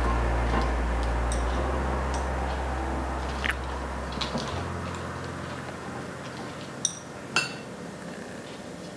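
Light clicks and ticks of metal chopsticks and hands placing vegetables onto rice paper on a plate, two sharper clicks near the end. A low steady hum underneath fades away about halfway through.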